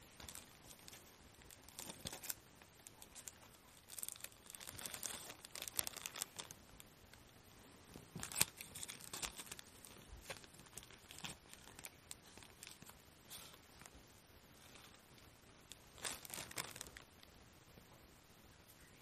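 Faint, scattered rustling and crinkling from a flat-pack folding mini stove being unpacked and handled, with light clicks of its thin perforated metal plates.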